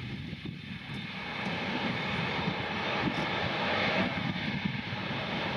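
Fixed-wing airplane's engines running, growing steadily louder as the aircraft comes closer.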